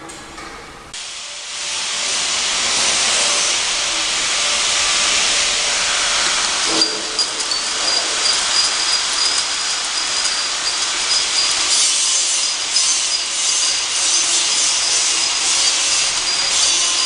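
Automatic ampoule and vial labelling machine running with a loud, steady hiss-like mechanical noise. About seven seconds in a steady high whine joins it, with light ticking through the rest.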